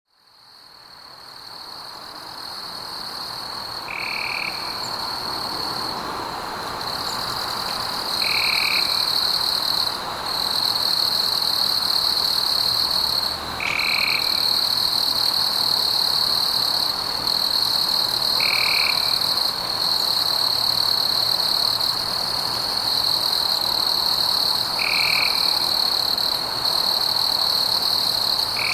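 Night forest ambience fading in: a steady high-pitched chorus of calling animals, with a short, lower call repeating about every five seconds.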